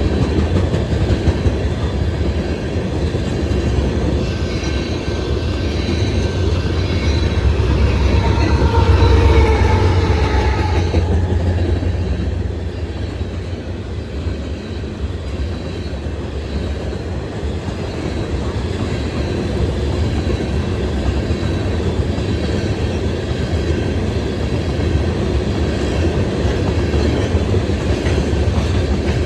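Freight cars of a mixed manifest train rolling past, a steady heavy rumble with clickety-clack of wheels over rail joints. A faint whine, falling slightly in pitch, rises out of it between about four and eleven seconds in, where the passing is loudest.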